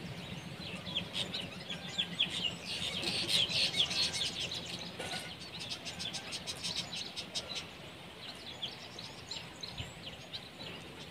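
Many small birds chirping in a busy chorus, densest and loudest a few seconds in.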